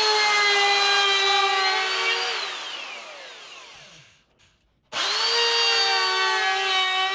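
Electric plunge router with a half-round bit running at speed as it cuts a rounded groove along the edge of a board, a steady high whine. About two seconds in it is switched off and winds down to silence; about five seconds in it starts again, quickly comes up to speed and runs steadily.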